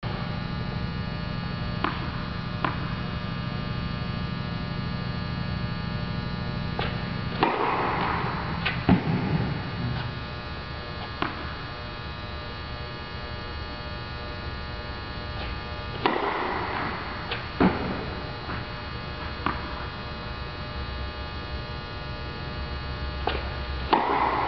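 Tennis balls struck on flat serves, about three loud hits several seconds apart, with single ball bounces between them, over a steady electrical hum.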